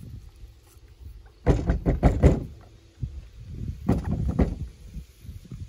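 A bullet-holed green winter squash shaken and handled, its loose seeds and insides rattling and thudding in two bursts, about one and a half and four seconds in. It is being shaken to hear whether the bullet is still inside, though the rattle may be only seeds.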